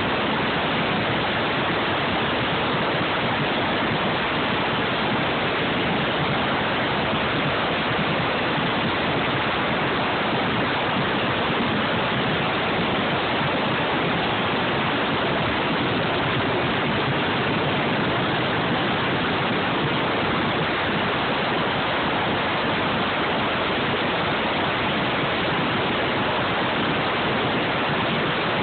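A dozen or more vintage nitro-burning Top Fuel dragsters running together in a cacklefest, so loud that they blur into one steady, dense wall of noise with no separate engine beat, the level flat and unbroken throughout.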